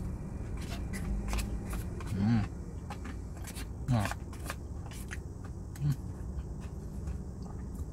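Close-up chewing and mouth clicks as a man eats rice and sate lilit, with clicks of a plastic fork against a paper food box and a few short hums of approval. A steady low rumble sits underneath.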